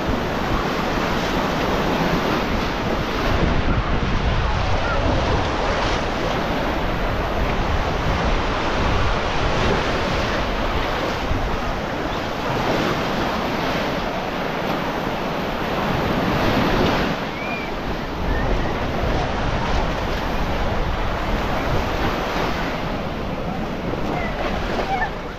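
Baltic Sea surf washing onto a sandy beach, a continuous rush of breaking waves that swells and eases, with one louder surge about two-thirds of the way through. Wind buffets the microphone throughout.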